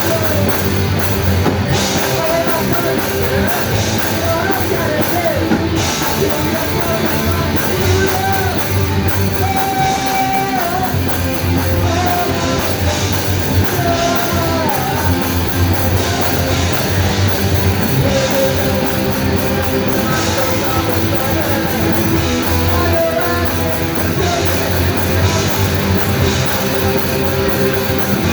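Live rock band playing loudly: distorted electric guitars with a gliding melodic line over bass and a driving drum kit.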